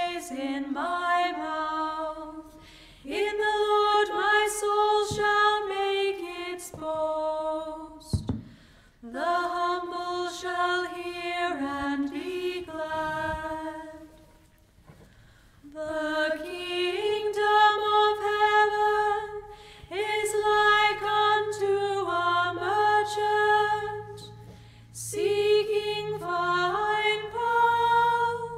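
A solo voice singing a slow hymn unaccompanied, phrase by phrase with short pauses for breath between; a faint low hum sits under the last third.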